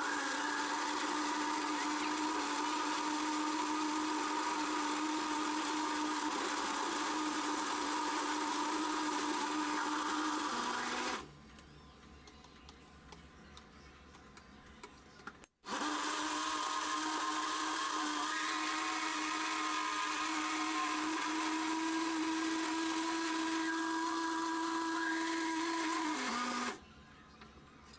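Countertop electric blender running at a steady pitch, blending milk-soaked bread into a liquid batter. About eleven seconds in its pitch sags as it is switched off. It starts again after a few quiet seconds and runs until shortly before the end, when it winds down and stops again.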